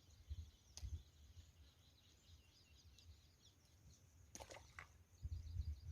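Faint birds chirping continuously over a low rumble of wind on the microphone, with a sharp click a little under a second in and a few short knocks just past the middle.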